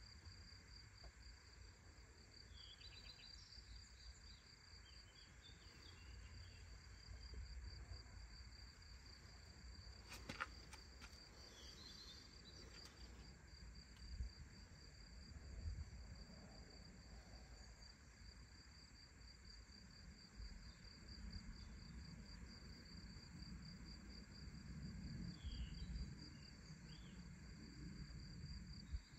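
Quiet outdoor ambience: a steady, high-pitched insect trill with a fine pulse, over a low rumble, with a few faint bird chirps and a couple of brief clicks.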